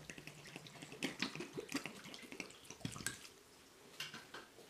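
Water poured from a bottle into a saucepan of chopped fruit and sugar: faint, busy splashing that dies away about three seconds in.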